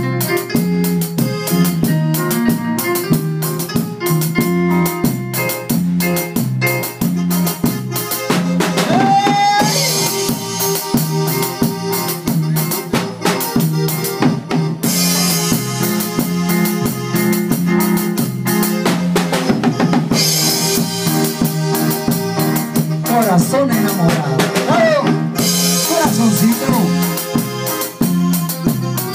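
Live band playing an instrumental break: drum kit keeping a steady beat with bass drum and snare, under electronic keyboard and electric guitar.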